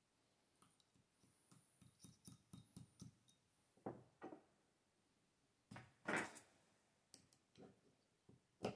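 Light clicks and taps of small plastic kit parts and hardware being handled at a workbench, with a few louder short knocks about four and six seconds in.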